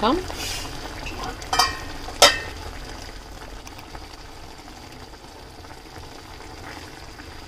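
Crab gravy simmering in an open pan with a steady bubbling hiss. A steel pan lid clinks twice, about one and a half and two seconds in, as it is taken off and set down.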